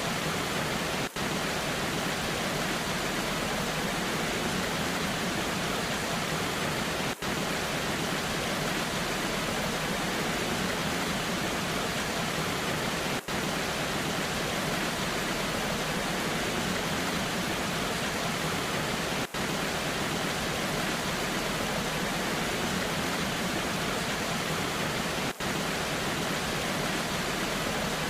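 Waterfall rushing in the rain, an even, unbroken hiss of falling water. It cuts out for an instant about every six seconds, five times.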